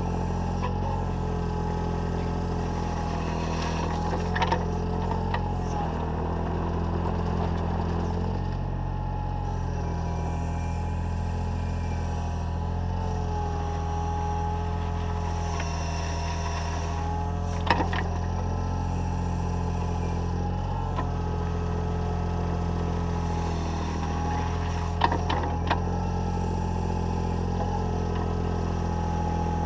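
Takeuchi TB014 mini digger's diesel engine running steadily under working load, with higher tones above it that shift in pitch as the boom and bucket move. A few sharp knocks stand out, about four seconds in, near the middle and again near the end.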